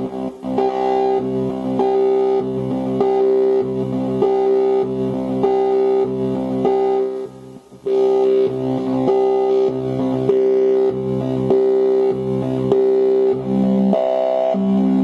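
Eurorack modular synthesizer playing a sequenced, repeating pattern of pitched, buzzy notes, each about half a second long. It cuts out for a moment a little past halfway, then picks up again.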